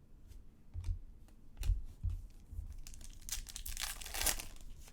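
Trading cards and their packaging being handled: scattered soft taps and clicks, then a crinkling rustle lasting about a second, a little over three seconds in.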